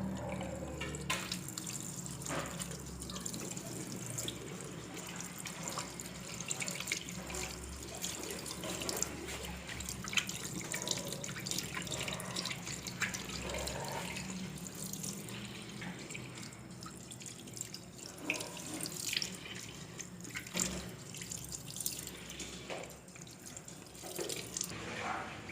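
Tap water running into a sink while hands are washed under it, with irregular splashing throughout.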